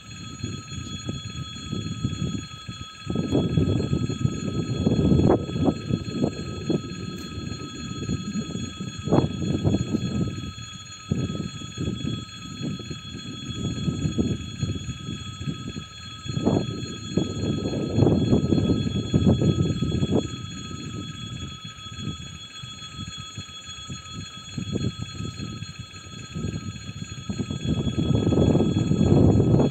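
Wind gusting against the microphone, a low rumble that swells and fades irregularly, with a faint steady high-pitched ringing held throughout.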